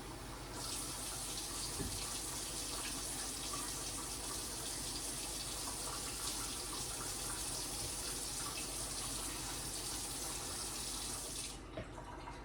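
Kitchen tap running, with water filling a container. The flow grows stronger a little under a second in and is shut off near the end.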